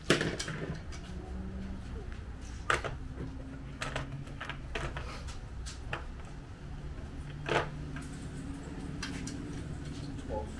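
Irregular metallic clicks and knocks of hand tools and parts being handled while working on an outboard's lower unit, with the sharpest near the start and at about two and a half and seven and a half seconds in, over a low background murmur.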